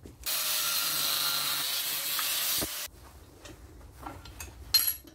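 Angle grinder with a cutting disc cutting through a steel bolt clamped in a vise: a steady cutting noise for about two and a half seconds that stops abruptly, then one short burst near the end.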